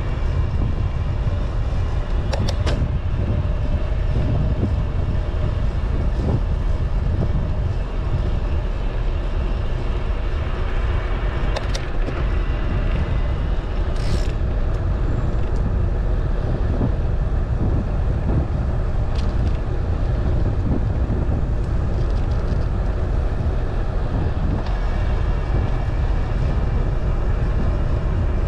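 Steady low rumble of a vehicle on the move, road and engine noise, with a few brief clicks or rattles about two, twelve, fourteen and nineteen seconds in.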